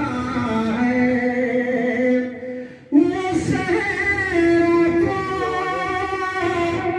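A man's voice chanting Urdu poetry in a sung style through a microphone and PA, drawing out long, held notes. He breaks off briefly for breath a little over two seconds in, then takes up a higher note.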